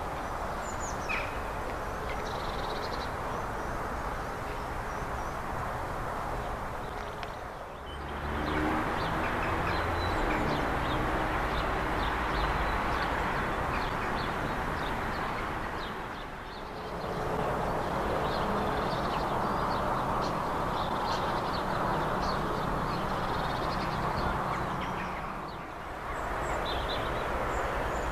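Birds calling in short chirps throughout, over a steady outdoor background rush that dips briefly three times.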